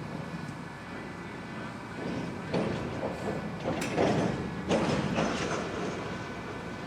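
Cooperage workshop machinery running with a steady hum, and a loud bout of clattering knocks in the middle.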